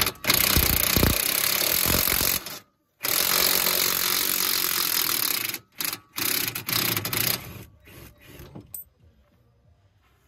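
Impact wrench running in three long bursts with short breaks between them, undoing bolts while the rear axle assembly is taken apart. A few quieter knocks follow before it falls quiet.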